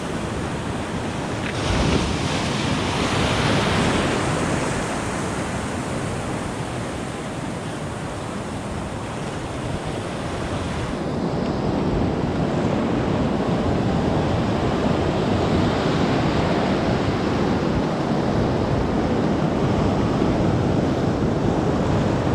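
Ocean surf breaking and washing over a rocky shoreline, with wind buffeting the microphone. One wave surges about two seconds in and washes out, and a heavier, fuller wash builds from about halfway through.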